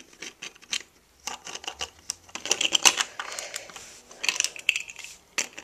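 Plastic LEGO bricks clicking and clattering as a small turret is handled and pressed onto the side of a LEGO base: an irregular run of sharp clicks, busiest in the middle, with one sharp click near the end.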